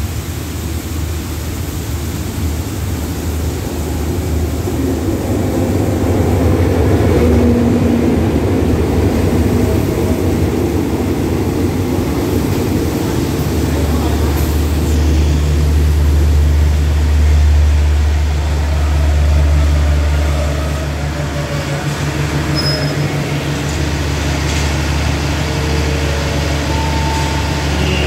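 Diesel-hauled passenger train rolling in along the platform and coming to a stand, with heavy rain falling throughout. From about halfway the locomotive's diesel engine runs with a steady low hum as the train stands.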